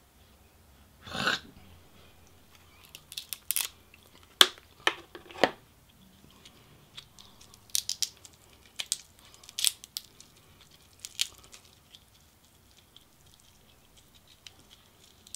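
Cooked king crab leg shell being cracked and pulled apart by hand: a longer crunch about a second in, then a string of short, sharp cracks and snaps at irregular intervals, thinning out near the end.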